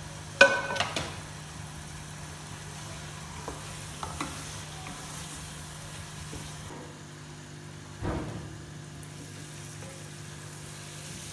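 Bitter gourd and potato curry sizzling in a pot while it is stirred with a wooden spatula. There is a loud, sharp knock against the pot that rings briefly about half a second in, and a few softer knocks later.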